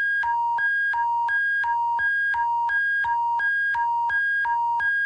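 Electronic two-tone alert signal alternating between a high and a lower pitch, each tone lasting about a third of a second, over a steady low hum.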